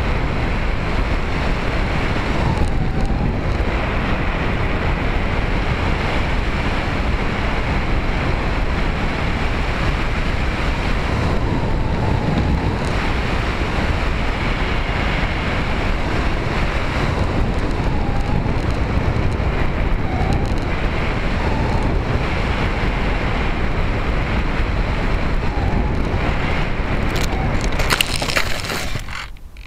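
Wind rush and the steady whine of a Bixler 2 RC plane's electric motor and pusher propeller, heard through the onboard key-fob camera's microphone, with the motor note dipping a few times as the throttle eases. Near the end a burst of rustling and clattering as the plane ploughs into long grass on landing, and the noise then drops away.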